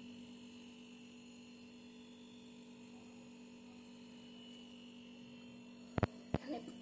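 A steady electrical hum with a faint high whine above it. Near the end come two sharp clicks, a fraction of a second apart.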